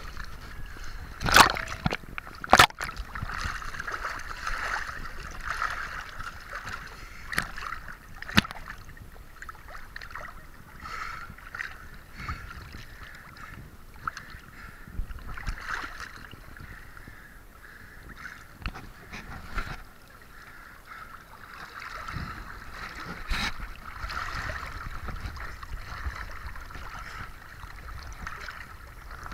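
Sea water sloshing and splashing around a camera held at the surface by a swimmer, with a few sharp knocks, the two loudest within the first three seconds.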